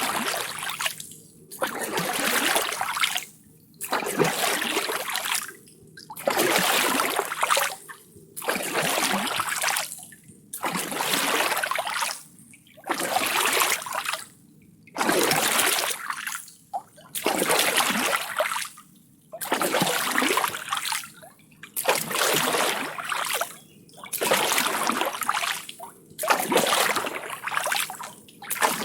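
Oars rowing through water: a splashing swish of water with each stroke, about one stroke every two seconds, with a short lull between strokes.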